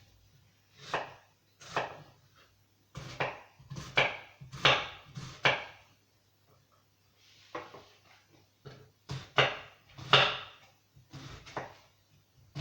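Kitchen knife slicing an onion thinly on a cutting board: a run of irregular cutting strokes, pausing for about a second and a half midway before going on.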